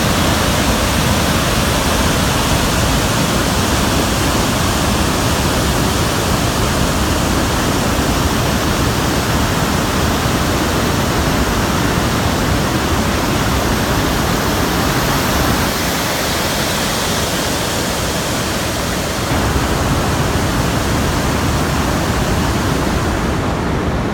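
Water pouring over a dam's curved spillway and crashing into the churning pool below: a loud, steady rush of falling water.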